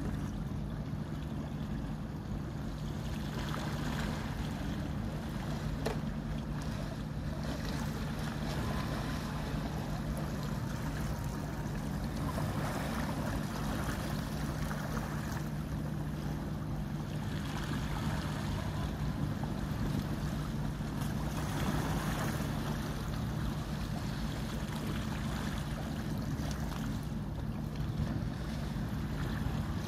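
A boat's engine running at a steady low hum, with the wash of water and gusts of wind on the microphone rising and falling over it.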